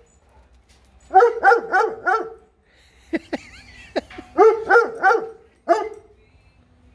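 A dog barking in two quick runs of about four barks each. Between the runs come a few sharp clicks.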